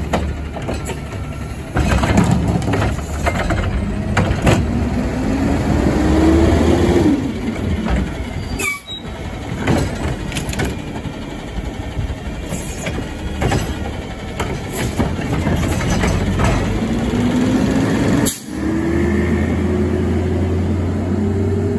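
Garbage truck diesel engines running and revving up to drive the hydraulic lift arms, the pitch rising twice as the arm works. Metal clanks and knocks come from carts being grabbed and dumped, and a hiss fits an air brake. The sound breaks off abruptly about a third and two thirds of the way through.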